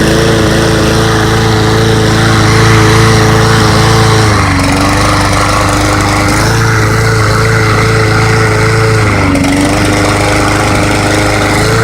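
Lawn mower's small engine running steadily now that its clogged air intake has been cleared. Its speed sags twice, for about two seconds near the middle and briefly later, then picks back up.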